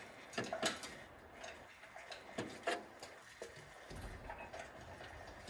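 Scattered metallic clicks and knocks from a hydraulic engine hoist and its lifting chain as a Toyota 22RE engine is raised off its unbolted motor mounts. A low hum sets in near the end.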